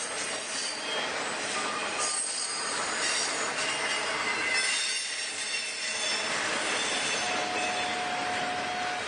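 Freight train cars rolling past, their steel wheels squealing against the rails in several thin high tones over a steady rumble. A steadier, lower squeal joins about seven seconds in.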